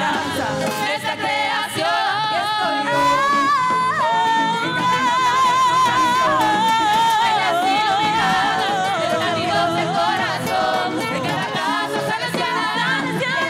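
A live band plays a pambiche–rock–tropical fusion song on drums, congas, guitars and keyboard while several women sing the melody together into microphones.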